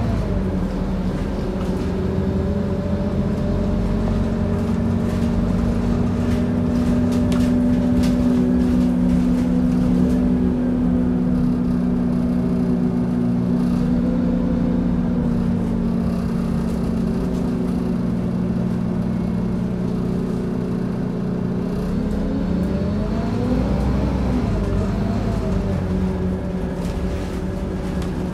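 Scania CN230UD OmniCity double-decker bus engine and driveline heard from inside the lower deck as the bus drives: a steady drone with a higher whine that rises and falls about three-quarters of the way through as the bus changes speed. A few light clicks and rattles sound over it in the first half.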